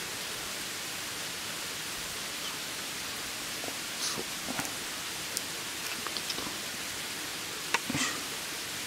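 A steady, even hiss, with a few light clicks and taps about four to five seconds in and a sharper knock near the end.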